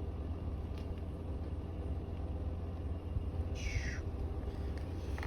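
Car cabin noise: a steady low rumble from a moving car, with a brief falling high-pitched squeak about three and a half seconds in.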